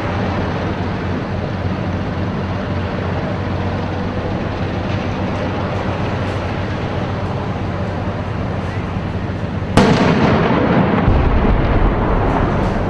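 Tank engines running with a steady low din, then a sudden loud blast about ten seconds in, followed by a louder continuing rumble and rush of noise.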